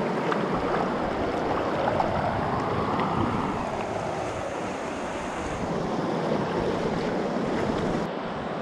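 Fast river water in spring high water, rushing and swirling steadily around a kayak, with wind buffeting the microphone.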